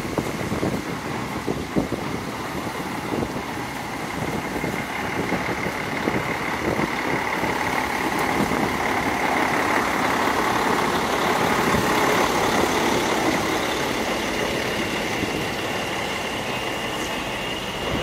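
A heavy motor vehicle running amid street traffic, growing louder toward the middle and easing off near the end, with a faint steady high whine over it.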